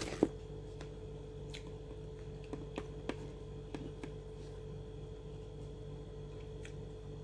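A few soft clicks and taps of eating and handling food by hand. The loudest is about a quarter second in, with a small cluster between about two and a half and four seconds in, over a steady low hum.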